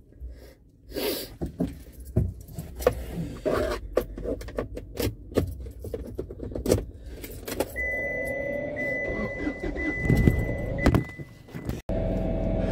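Phone handling noise inside a car: a run of knocks, scrapes and rattles as the recording phone slips from the hand and is fumbled. In the second half a high beeping tone sounds with short breaks over a low hum.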